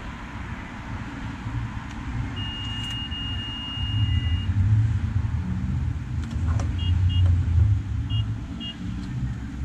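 Gas pump dispenser beeping while it is worked: one long steady beep of about two seconds, then two pairs of short beeps. Underneath is a steady low rumble, with a few faint clicks as the nozzle is handled.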